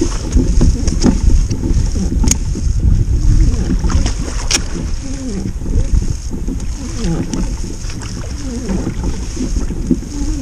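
Wind buffeting the microphone in a loud, gusting rumble, with a steady high hiss and two sharp clicks in the middle.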